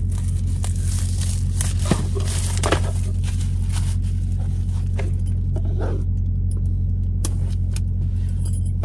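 Steady low drone of an idling truck engine heard inside the cab. Over it come crinkles, taps and scrapes from shrink-wrapped cardboard boxes being handled, mostly in the first six seconds.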